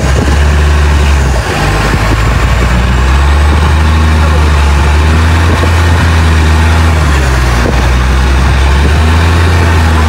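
Motorboat engine running steadily at speed, a loud low hum, with the rush and splash of water along the hull.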